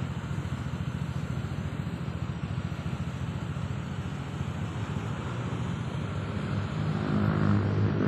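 A small engine running steadily with a low, pulsing rumble, growing louder near the end.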